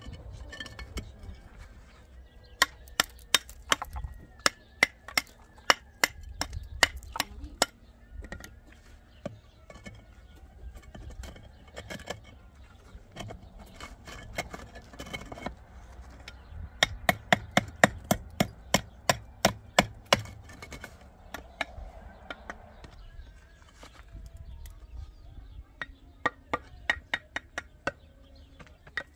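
Knife chopping on a wooden cutting board in three runs of quick strokes, a few a second, with pauses between.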